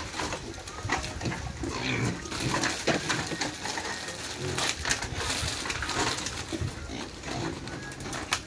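Domestic pigs, sows and piglets, grunting irregularly, with scattered short clicks and scuffs.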